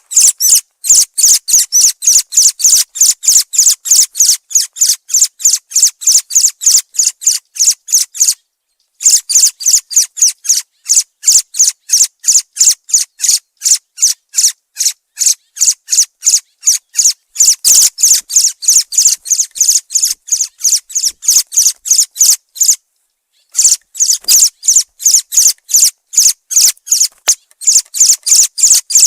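Thrush (zorzal) calling: a rapid, evenly repeated series of high, sharp chirps, about three to four a second, with two short pauses.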